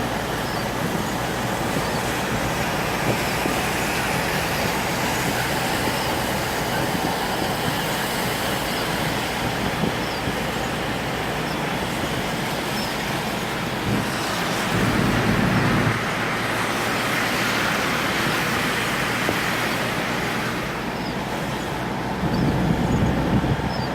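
Car driving through city traffic on rain-wet roads: a steady hiss of tyres on wet pavement and rain. A deeper rumble swells twice, about two-thirds through and again near the end.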